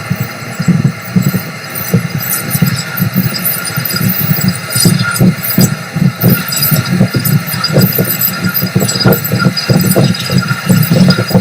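Metal lathe cutting a mild steel plate. The machine runs with a loud, pulsing low hum, and the tool scraping the steel gives frequent short crackles.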